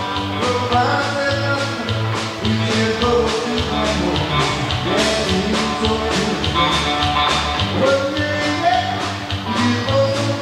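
Rock and roll music with a steady drum beat, guitar and singing.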